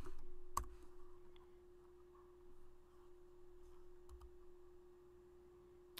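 A single computer keyboard keystroke about half a second in, the last of a typed terminal command, then quiet with a faint steady tone.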